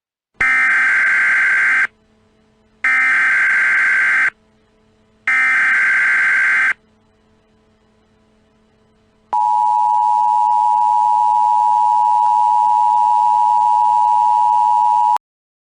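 Emergency Alert System tones announcing a Civil Danger Warning: three short bursts of screeching digital SAME header data about a second apart, then, after a pause, the steady two-tone EAS attention signal held for about six seconds before it cuts off suddenly.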